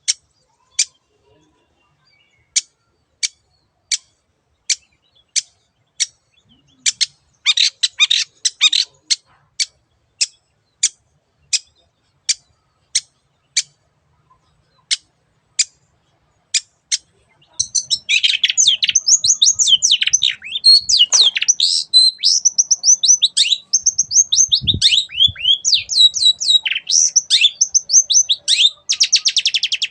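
Long-tailed shrike (cendet) giving sharp single calls about every three-quarters of a second, with a short burst of chatter, then breaking about halfway through into a fast, varied song of rapid chattering phrases that ends in a quick trill.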